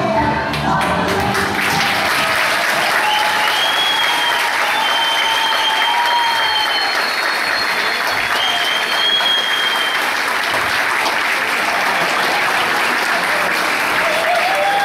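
Audience applauding steadily, with some high voices calling out over the clapping.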